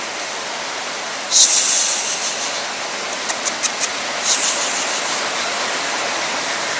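Heavy rain falling steadily, a dense hiss, with two louder surges of hiss about a second and a half in and again past four seconds, and a few sharp ticks of drops around three seconds in.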